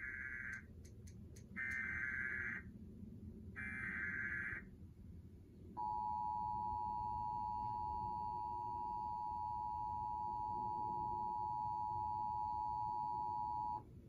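Emergency Alert System activation heard through a TV speaker: three short bursts of warbling SAME digital header tones, about a second each and a second apart, then the steady two-tone attention signal held for about eight seconds, announcing a severe thunderstorm warning.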